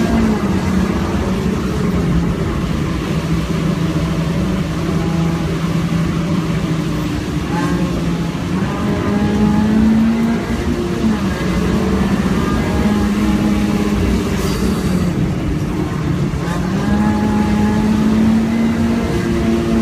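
A car's engine heard from inside the cabin at speed, its note holding, dropping and climbing again several times with gear changes and throttle, over a steady rush of tyre and road noise on a wet track.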